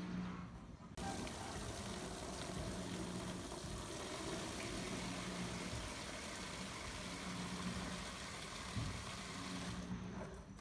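Tap water running from a water tank into a plastic basin, starting suddenly about a second in and shut off shortly before the end.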